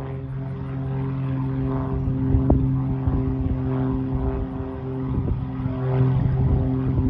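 Light propeller airplane flying past overhead, its engine and propeller giving a steady drone at constant pitch that grows louder as it approaches.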